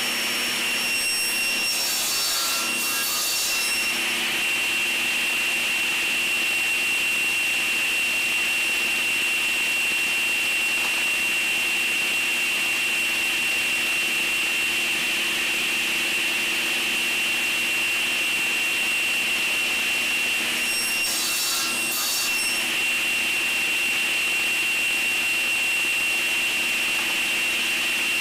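Table saw running steadily at speed with a high, even whine, its blade crosscutting strips of hardwood on a sled; the sound roughens twice briefly as the blade cuts through, about two seconds in and again past the two-thirds mark.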